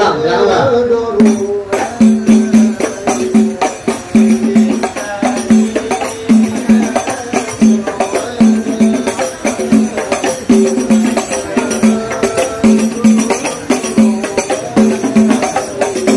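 Traditional percussion music: drum strokes and jangling tambourine-like jingles in a steady, repeating rhythm.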